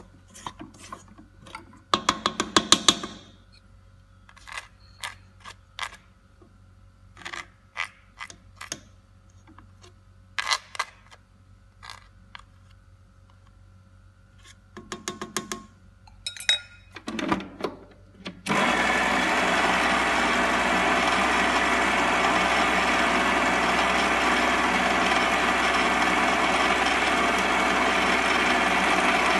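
Scattered clinks and taps of a utensil against a stainless steel mixing bowl, then about two-thirds of the way in an electric stand mixer switches on and runs steadily, its flat beater creaming cookie dough. The mixer is the loudest sound.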